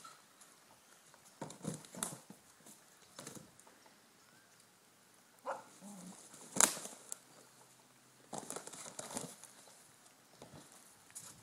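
Intermittent rustling and crunching in dry fallen leaves, coming in several short spells, with one sharp click about two-thirds of the way through.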